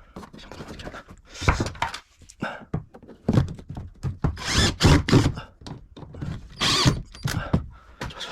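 Irregular thunks and knocks with a few longer scraping rasps, the sound of plywood panels and tools being handled during bus ceiling work.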